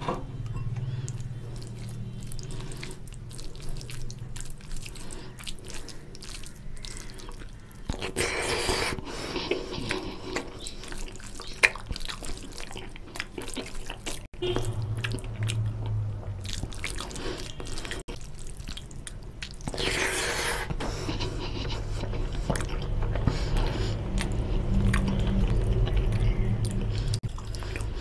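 Fingers mixing rice with oily fish curry and crisp fried onions on a plate, close to the microphone. It is a run of wet squishing and small sticky clicks, with chewing between.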